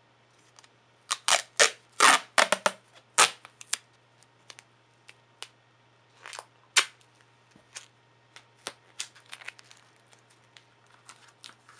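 Duct tape being pulled off the roll in a quick series of short, loud rips, with two more rips about halfway through. Softer crinkles and clicks follow as the strip is handled.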